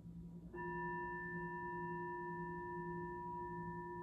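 A singing bowl struck once about half a second in, then ringing on steadily with several clear overtones.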